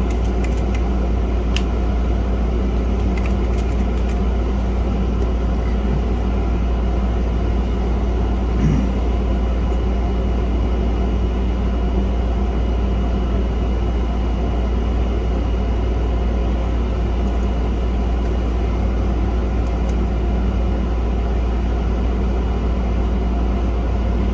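A steady low mechanical hum and rumble that does not change, with a few faint light clicks.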